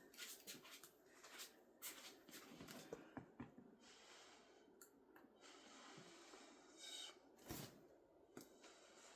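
Near silence: quiet room tone with faint scattered clicks and rustles, and one slightly louder soft knock about three quarters of the way through.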